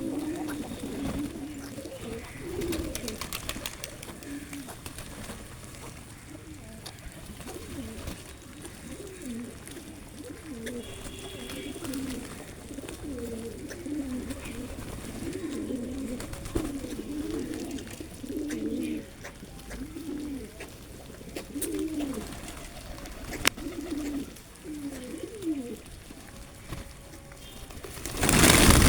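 Pigeons cooing over and over in low, warbling calls. A loud rushing noise starts near the end.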